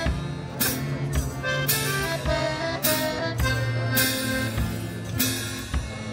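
Live music from a one-man band: held melody notes over a bass line, with a sharp hit on the beat about once a second.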